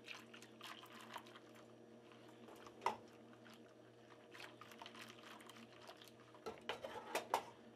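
Wire whisk stirring egg yolks and milk in a bowl, giving faint scattered clicks and taps, with a run of louder taps about six and a half seconds in. A steady low hum sits underneath.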